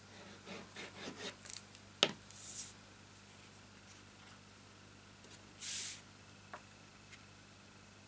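Handheld tape-runner adhesive dispenser scraping along paper in several short strokes, then a sharp knock about two seconds in. After that come paper rustling and a brief swish as the glued sheet is handled and laid down.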